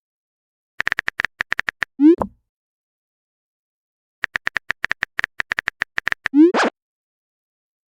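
Phone keyboard typing sound effect, a quick run of sharp clicks, each run followed by a short rising chirp of a message-sent alert; this happens twice.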